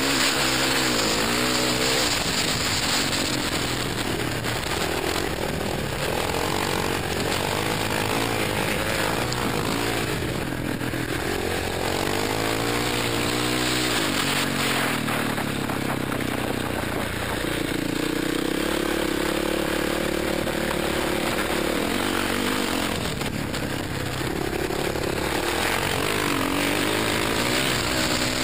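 Dirt bike engine running hard, its pitch rising and falling over and over as the rider revs and shifts, heard from a helmet camera with steady wind noise underneath.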